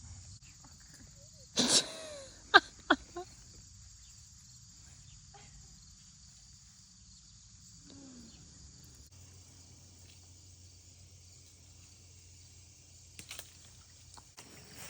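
Evening chorus of crickets and other insects, a steady high-pitched trill. About two seconds in there is a short loud call, followed by two sharp clicks.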